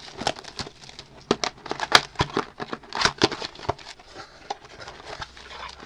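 A cardboard trading-card mini box being handled and opened by hand: irregular crinkles, taps and sharp clicks of cardboard and wrapper.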